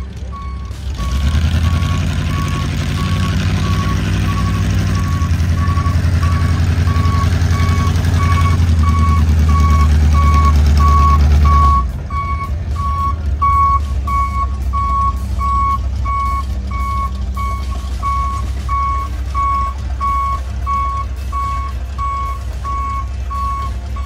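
Monster truck engine running loudly under load, then dropping abruptly to a quieter, steadier run about twelve seconds in. Throughout, a reversing beeper sounds a single high beep about one and a half times a second as the truck backs up.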